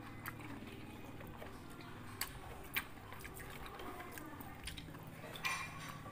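Eating sounds: chewing of fresh fruit with a few sharp clicks and a short scrape of a metal spoon against a clay plate as pieces of rujak are scooped up.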